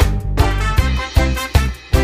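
Background music with a steady beat and a strong bass line.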